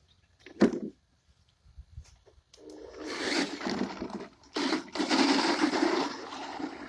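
A short thump about half a second in, then the Hart 20-volt RC truck's electric drive motor running with its tyres scrabbling over loose dirt and gravel, in two surges of acceleration that throw up dust.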